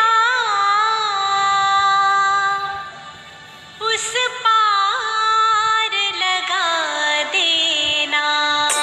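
Background music: a devotional song with a sung melody of long, wavering held notes. It drops away briefly about three seconds in, then resumes.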